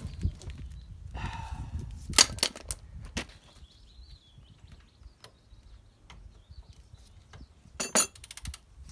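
Metal hand tools clinking and clanking against the car's front suspension as a long ratchet and socket are fitted to the hub bolts: a few sharp clanks in the first three seconds and a quick run of clicks about eight seconds in.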